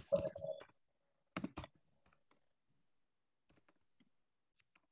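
Computer keyboard keys clicking as text is typed, with a few clearer clicks in the first second and a half and then only faint, scattered key taps.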